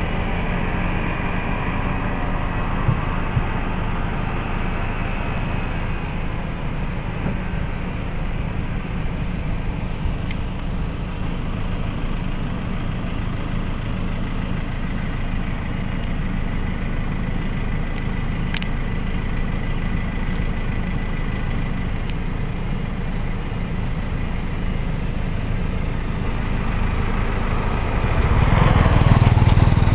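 Pickup truck engine running steadily, a low rumble, swelling louder near the end as a vehicle passes close.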